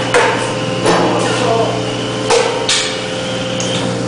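Steady hum of a sheet-metal V-cutting (V-grooving) machine running, with several sharp metallic clanks from the cutting head and its handle being worked.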